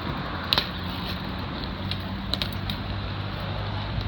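Steady low hum of background traffic, with one sharp knock about half a second in and a few lighter clicks a little after two seconds.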